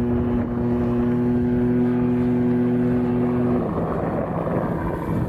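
Brushless electric motor and propeller of a large RC Hawker Hurricane model (Hacker A60 16L) holding a steady whine in flight. The whine cuts off suddenly about three and a half seconds in, leaving wind noise.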